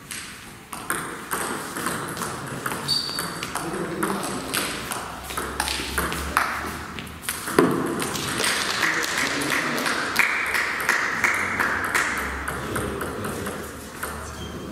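Table tennis rally: the ball clicking sharply off the rackets and the table in quick succession, ending about halfway through, followed by a few seconds of steady noise.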